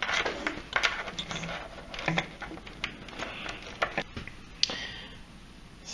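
A mini USB vacuum cleaner and its packaging being handled while it is unpacked: irregular clicks, rattles and short rustling scrapes, with a few sharper knocks.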